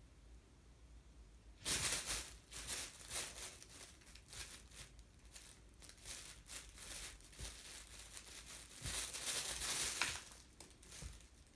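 Fabric cat tunnel rustling in quick bursts as a cat pounces on it and shoves it across the floor. It starts about two seconds in and is loudest at the start and again near the end.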